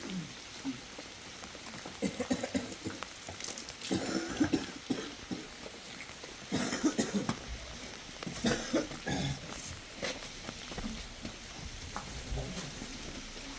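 Goats bleating, several separate calls a few seconds apart.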